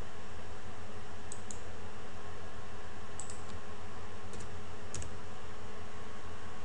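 A few short clicks from a computer keyboard and mouse, some in quick pairs, over a steady background hum.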